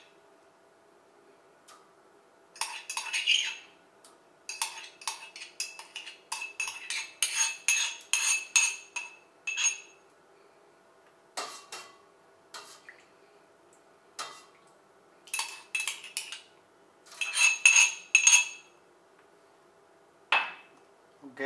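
Steel spoon clinking, tapping and scraping against a small steel bowl and a steel pot as crushed garlic is spooned into the water. The clinks come in irregular clusters, with short ringing.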